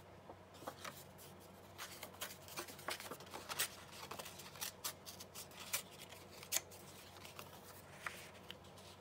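Scissors snipping through paper in a run of quick, irregular cuts.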